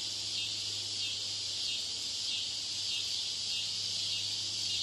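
Steady ambient background noise added to test audio: a continuous high-pitched hiss with a faint pulsing texture, over a low steady hum.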